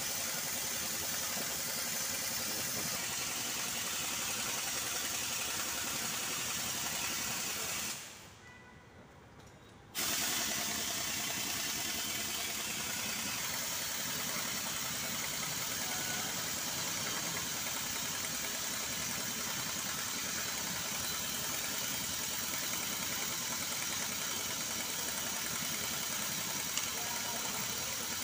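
Steady workshop background noise, an even hiss with no clear rhythm or tone. It cuts out for about two seconds near the middle and comes back abruptly.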